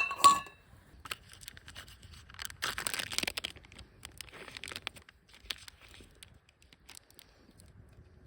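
Camp gear being handled: a sharp metal clink that rings briefly at the start, then scattered light clicks and rustling, crinkling handling noise.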